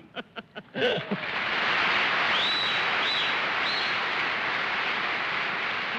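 Studio audience laughing and applauding, starting about a second in and holding steady, with a few short high squeals over it.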